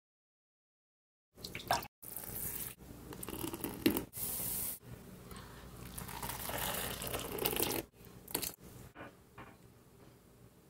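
Thick green soup sloshing and splashing in a clay pot as it is stirred and ladled with a spoon, with a few sharp clicks. It starts suddenly about a second and a half in and gets quieter near the end.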